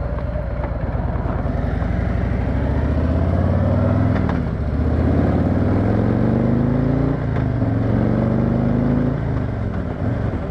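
Harley-Davidson Street Glide Special's V-twin engine accelerating through the gears after a turn: the pitch rises three times, dropping back at each upshift.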